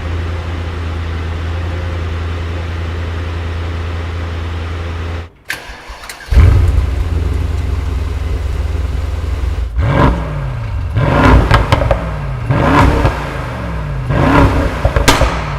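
Brabus GT 900 Rocket's twin-turbo V8 idling, then cut off and restarted with a loud flare about six seconds in. It settles to idle and is then revved in four short blips, pitch rising and falling with each.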